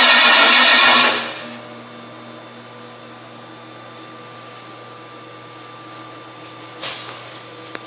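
A freshly rebuilt V8 engine on a test stand running loud, then cut off about a second in and dying away over half a second. A steady low hum remains after it, with a couple of small clicks near the end.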